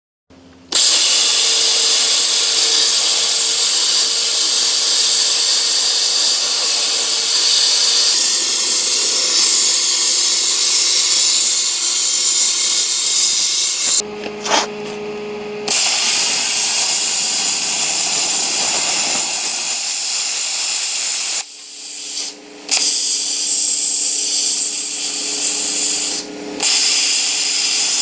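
Hypertherm Powermax plasma cutter cutting through a lathe bed: a loud, steady hiss of the arc and air that breaks off briefly three times as the arc goes out and is restarted.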